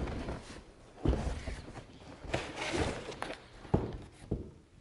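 A long cardboard box being opened on a table: a few dull thuds and knocks of the box and its lid, the loudest just after a second in and near the end, with a scraping rustle of cardboard in between.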